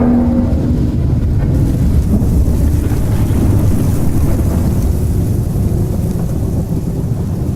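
Horror ambience sound effect: a steady deep rumble like thunder and wind. A low held wailing tone fades out about a second in.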